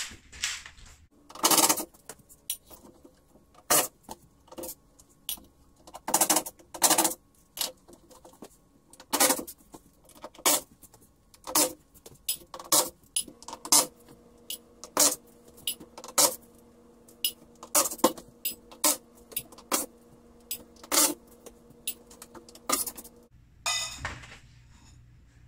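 Cordless drill-driver backing screws out of a poker table's rail: a long run of short, sharp bursts and metallic clicks and clinks as screws come out, with a steady low hum from about halfway until near the end.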